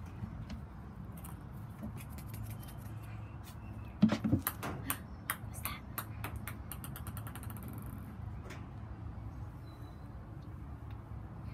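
A thump and clatter about four seconds in, then a run of light plastic clicks that come faster and faster and die away: a cat's holed plastic toy ball bouncing and rolling to rest on a concrete floor.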